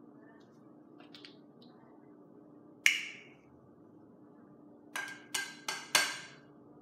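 A ceramic plate and a small glass measuring cup clinking: one ringing clink, then about two seconds later four quick knocks, the last the loudest, as the plate is tipped and tapped over the glass to drain water into it.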